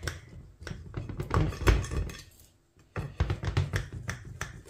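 Knife cutting down through baked semolina-and-date maamoul madd, the blade tapping and knocking on the bottom of the glass baking dish: a run of short taps and thunks, loudest a little under two seconds in, a brief pause, then more.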